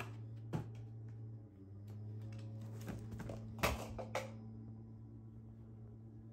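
A steady low hum with a few short knocks and rustles of handling, the loudest cluster about three and a half to four seconds in.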